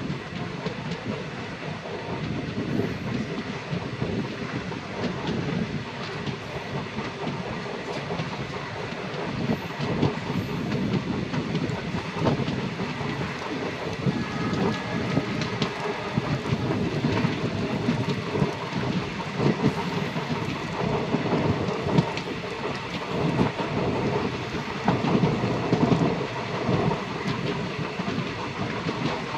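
A train running along the track, its wheels clicking over the rail joints at irregular intervals above a steady rumble.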